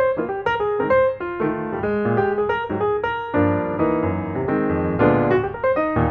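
Background piano music: a steady run of melodic notes.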